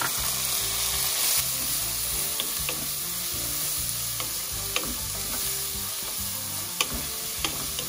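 Diced red onions sizzling in hot oil in a nonstick pan while a wooden spatula stirs them. The spatula gives several short knocks and scrapes against the pan now and then.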